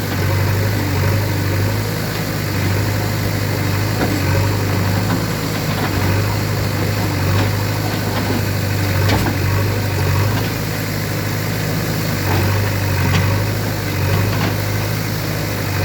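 Heavy diesel engine running steadily at a low, even speed, with scattered faint clicks and knocks.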